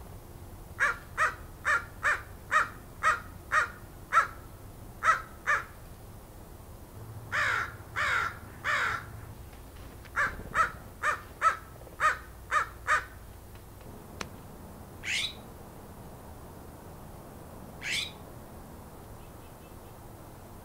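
Corvid calling. A run of about ten short, harsh calls at roughly two a second, then three longer calls falling in pitch, then another fast run of about seven calls. Later, two single calls rise sharply in pitch.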